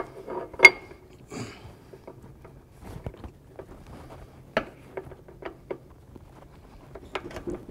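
Scattered light metal clicks and taps as a new Pitman arm is worked by hand onto the splined sector shaft of a steering gearbox, the splines being lined up with the index marks. A sharper click comes about half a second in.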